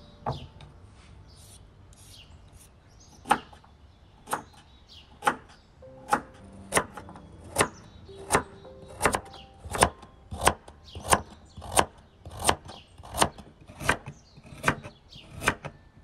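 A cleaver chopping carrots into rounds on a wooden cutting board, each stroke a sharp knock of the blade through the carrot onto the board. The knocks come about once a second at first and get quicker toward the end.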